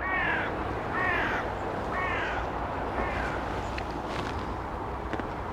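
A crow cawing four times, about one caw a second, each call falling in pitch.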